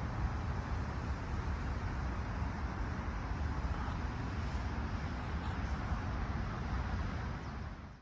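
Steady outdoor city background noise: a low rumble of distant traffic with a hiss over it, which cuts off suddenly at the end.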